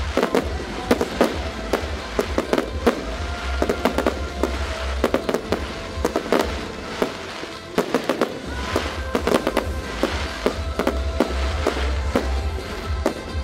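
Fireworks display: a rapid run of bangs and crackle from aerial shells and rising comets, several reports a second, with music playing behind.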